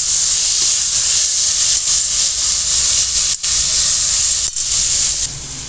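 Onion, tomato and ginger-garlic paste frying in hot oil in a pan: a loud, steady sizzle that cuts out briefly twice, about three and a half and four and a half seconds in, and eases a little near the end.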